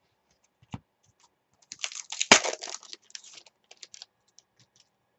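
Foil trading-card pack wrapper and cards being handled: scattered light clicks, then a flurry of crinkling about two seconds in that peaks in one sharp rip as the pack tears open, tailing off into a few more clicks.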